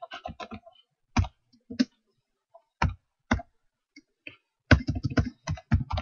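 Computer keyboard keys clicking: a few scattered keystrokes, then a quick run of typing near the end.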